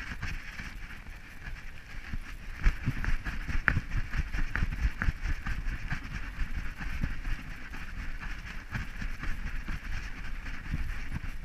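Handling noise of a GoPro Hero 3 strapped to a dog's harness as the dog moves over rocky ground: irregular bumps and knocks of the camera being jostled over a steady hiss.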